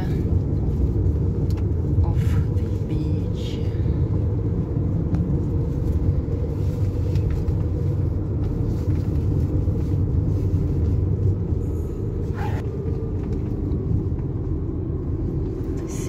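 Steady low rumble of a car driving on the road, with engine and tyre noise heard from inside the cabin.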